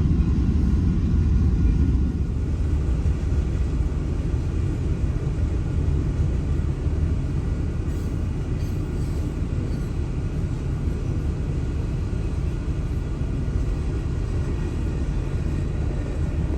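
Long freight train rolling past, heard as a steady low rumble from inside a car; a little louder in the first two seconds, then even.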